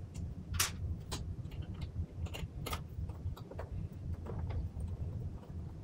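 Irregular small clicks and taps of a hex key and fingertips against the metal mounting bracket and aluminium back of an Apple Cinema Display, over a steady low hum.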